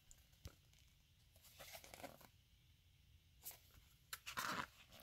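Paper pages of a small picture book being handled and turned, giving faint rustles and a louder swish of a page about four and a half seconds in.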